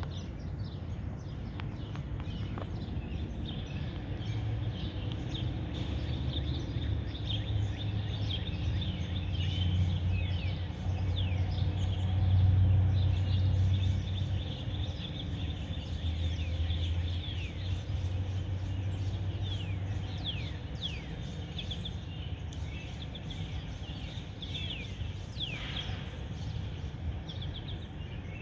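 Small birds chirping: many quick, high chirps and short sliding calls overlapping. Underneath is a steady low rumble that swells about halfway through.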